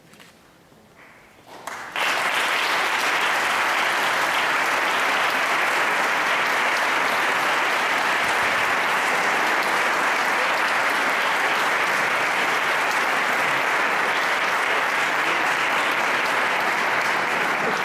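A crowd applauding: it breaks out suddenly about two seconds in and keeps up steadily, beginning to die away at the end.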